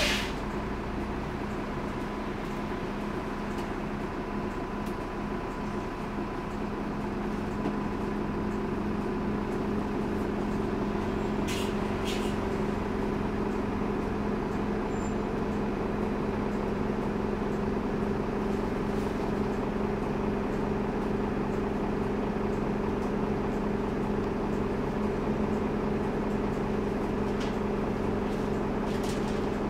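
Optare Tempo single-deck bus's rear-mounted diesel engine idling with a steady drone, heard from inside the saloon, getting a little louder about seven seconds in. Two faint clicks about twelve seconds in.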